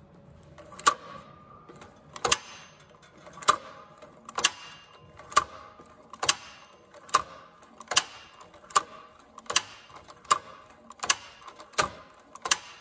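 Cowboy Outlaw hand-operated needle-feed sewing machine stitching through a thick stack of leather, one stitch at a time. Each stitch gives a sharp metallic clack with a short ring, about one a second, coming a little faster towards the end.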